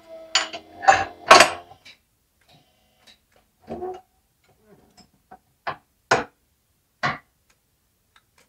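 QuickJack portable car lift: its electric pump hum cuts off about half a second in, then a series of separate metal clanks and clicks as the lift frames settle onto their safety locks. The loudest clanks come in the first second and a half, with fainter ones spread over the rest.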